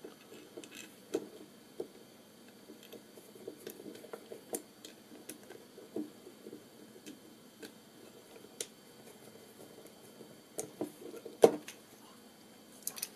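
Small clicks and taps of hands handling a 3D printed plastic block and its M3 bolts and clamp plate, with one sharper click about eleven and a half seconds in. Near the end a small screwdriver starts turning a bolt into the plastic.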